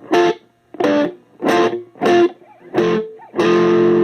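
Electric guitar playing a phrase of six short notes, the last one held.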